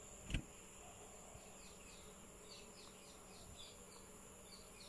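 Quiet background of insects: a steady high whine and, from about halfway in, a run of short falling chirps, several a second. A single soft knock a third of a second in is the loudest sound.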